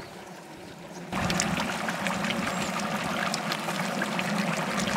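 Large pot of spiced gravy with a whole goat in it boiling hard, bubbling and popping steadily. It comes in loud about a second in.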